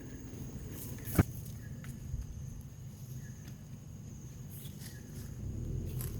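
Outdoor ambience: a low rumble under a faint, steady high-pitched whine, with one sharp knock about a second in and a few light taps.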